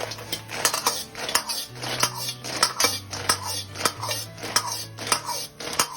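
A metal wok ladle scraping and clanking against a wok, over and over, as fried pork pieces are tossed in thick sweet-and-sour syrup.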